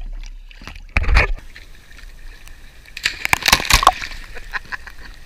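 River water sloshing and splashing right at a camera held at the surface and dipping under it, with a burst of splashes about a second in and a longer spell of splashing around three to four seconds in.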